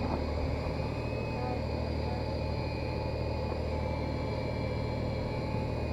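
Steady low hum of a boat's engine running, with a faint steady high whine above it.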